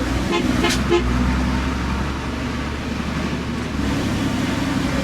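Truck engine running steadily on the road, with a short horn toot under a second in; the engine note changes near four seconds in.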